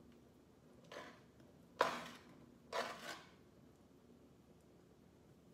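Spatula scraping through thick gravy in a skillet as it is stirred: three short scrapes about a second apart, the second the loudest.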